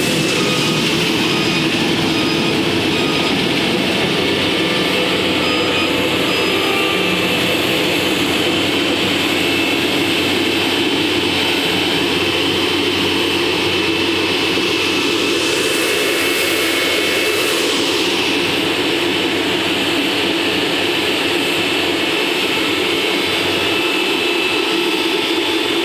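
Harsco track relaying train's engines and machinery running steadily: a loud, even drone with a steady high whine. A hiss rises for a couple of seconds about sixteen seconds in.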